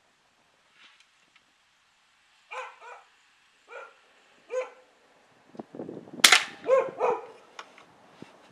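A dog barks several times. About six seconds in, a single sharp crack from an Air Venturi Avenger .25 PCP air rifle fitted with a moderator is the loudest sound, and the dog barks again right after it.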